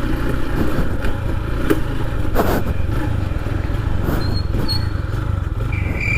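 Mahindra Centuro motorcycle's single-cylinder engine running steadily while riding up a slope, with a few short knocks. A high pulsing beep starts near the end.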